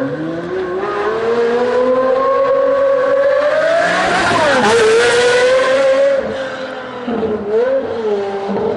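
Pagani Zonda's Mercedes-AMG V12 accelerating hard past the listener. The engine note climbs as it approaches, drops sharply in pitch as the car goes by about four and a half seconds in, then revs again as it pulls away.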